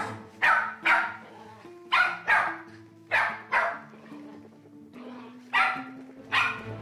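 Small long-haired dog barking in short, sharp barks, about nine of them in clusters of two or three. The dog is still worked up and excited.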